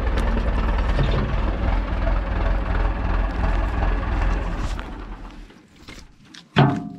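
Farm tractor diesel engine running steadily, fading away about five seconds in. Near the end, music starts abruptly.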